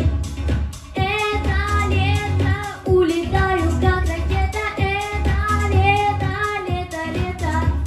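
A female voice sings a pop song over a backing track with a steady bass beat.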